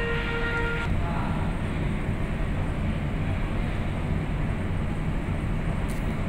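Steady low rumble of a ferry's engines heard from its deck, mixed with wind. Music-like tones run over it for about the first second, then stop.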